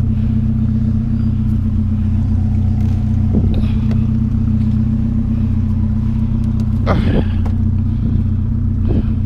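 Pickup truck engine idling steadily, with a few knocks and clatters about three and a half, seven and nine seconds in as a heavy TV is handled.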